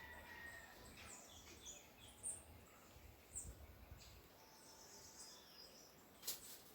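Near silence with faint, scattered bird chirps, short high calls now and then, and a soft knock near the end.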